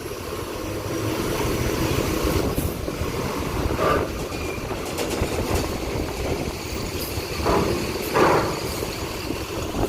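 Large bus driving past and onto a ferry: a steady low rumble of engine and tyres, with a few faint calls from people near the middle and end.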